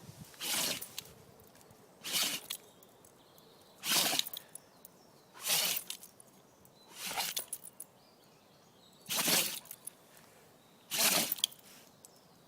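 Dog sneezing over and over: seven short, sharp sneezes, roughly one every one and a half to two seconds.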